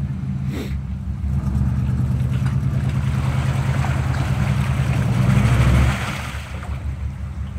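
Square-body Chevy 4x4's engine revving under load as the truck, stuck in a deep mud hole, tries to drive out with its tyres churning in mud and water. It picks up about a second in, runs hardest near the end, and eases off near six seconds.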